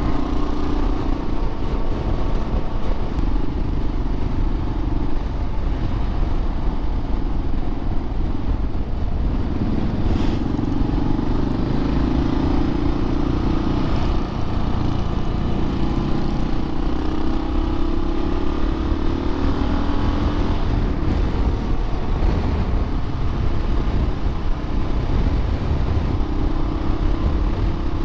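Motorcycle engine running steadily while riding along a road, with a constant low rumble; its note rises and falls a few times as the throttle and speed change.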